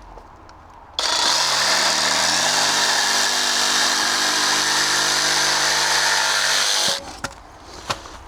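Electric power saw cutting through a length of timber. It starts suddenly about a second in, its motor rising in pitch before running steady, and stops suddenly about seven seconds in.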